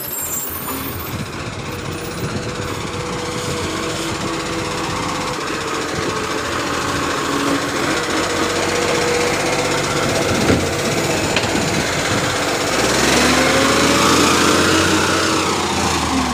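Side-loader garbage truck's diesel engine running close by with a rattling clatter, then revving up with a rising pitch a few seconds before the end.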